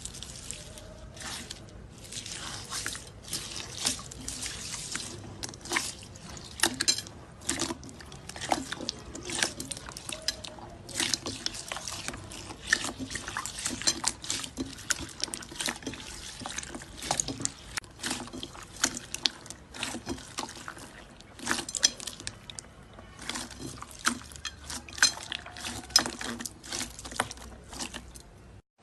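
Slime being squeezed, poked and stretched by hand: a dense, irregular run of wet, sticky clicks and pops.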